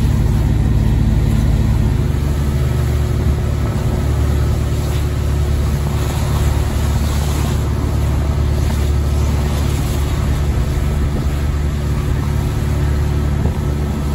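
Vehicle-mounted train horn's air compressor running on without stopping as it refills the air tank after a honk: a steady low hum over the engine and road noise of the moving vehicle. It is slow to fill the tank in the cold.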